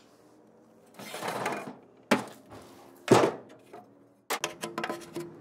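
A series of knocks and thuds: a muffled swell about a second in, a sharp thunk at about two seconds and a louder one a second later, then a quick run of clicks and knocks near the end.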